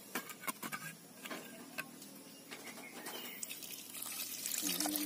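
A few light clicks as a glass bottle is handled over a clay pot, then liquid poured from the bottle splashing onto the fish and vegetables, growing louder near the end.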